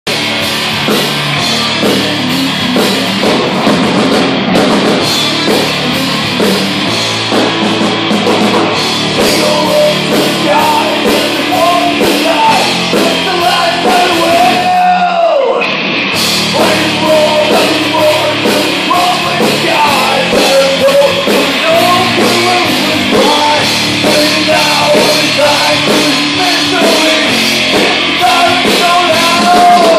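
Live heavy metal band playing: distorted electric guitar and drums under a male singer's vocals. Around the middle the band drops out for about a second, then comes back in.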